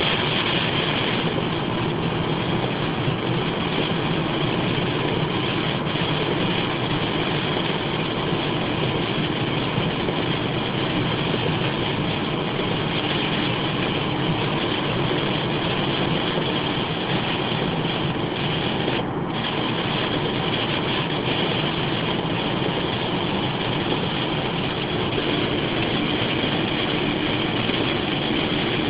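Steady noise inside a moving car: engine and tyres running on a wet road, unbroken throughout.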